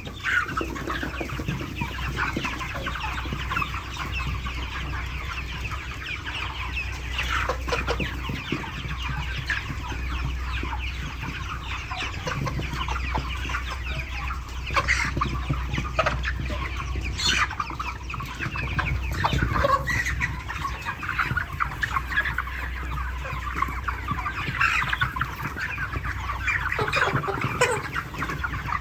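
A large flock of 42-day-old broiler chickens clucking and chirping continuously, many birds calling over one another, over a steady low hum.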